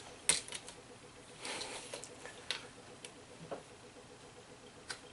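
Faint scattered clicks and a few short scratches: a tape measure being handled and a pencil marking a measuring point on a drawer front.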